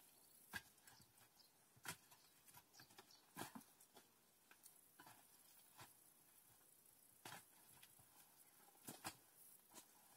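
Faint, irregular snaps and rustles of brush and stems being handled in dense undergrowth, a short crack every second or so.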